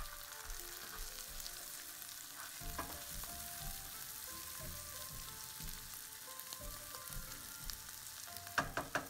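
Sliced bitter gourd sizzling as it fries in oil in a nonstick pan, stirred and scraped with a spatula. Near the end comes a quick run of sharp knocks as the spatula strikes the pan.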